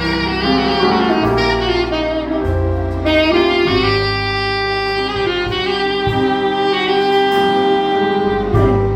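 Instrumental music: a lead instrument playing long held melody notes over a low bass line that changes note every second or two.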